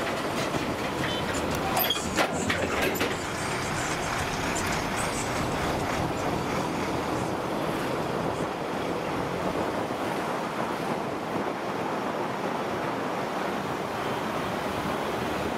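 Steady rush of wind and road noise from a motorbike riding at speed along a highway, with a few sharp knocks or rattles about two to three seconds in.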